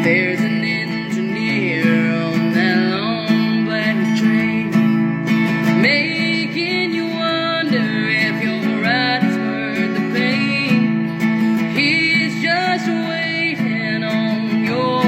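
Acoustic guitar strumming steady chords in a country style, with a melody line above it that bends and slides in pitch.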